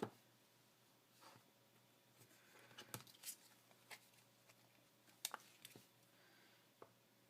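Faint scattered taps and clicks on a tabletop from stamping supplies being handled: a clear stamp on its acrylic block being inked and set down, about seven light taps spread irregularly.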